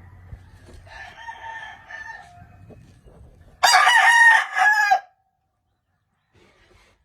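Gamefowl roosters crowing: a fainter, farther crow about a second in, then a loud close crow lasting about a second and a half that stops abruptly.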